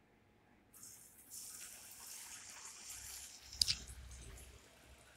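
Batter-coated soya chunks sliding into hot oil in a kadai and deep-frying, a steady sizzle starting about a second in, with a sharp crackle of spitting oil a little past halfway.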